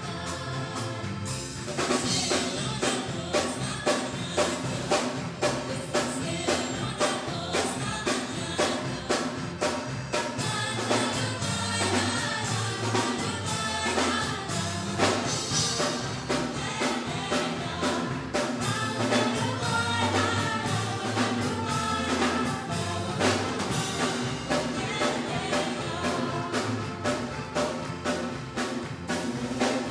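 Live band music with women singing into microphones over a steady beat, played through a PA system.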